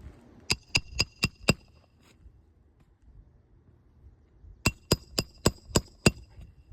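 Roofing hammer striking a metal roof snake to drive the last shingle nail: a run of five quick ringing metallic strikes, about four a second, then after a pause of about three seconds another run of six.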